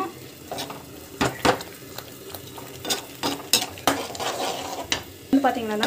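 Spatula stirring a thick paneer masala in a frying pan: irregular clicks and scrapes of the spatula against the pan, about eight of them, over a faint background hiss.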